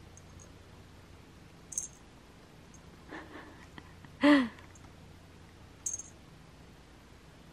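One short vocal sound about halfway through, rising then falling in pitch, with a few faint sharp clicks before and after it.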